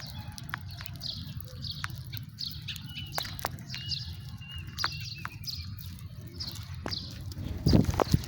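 House sparrows chirping: a steady run of short high chirps, about two a second, with a few sharp clicks among them over a low rumble. A low thump near the end is the loudest sound.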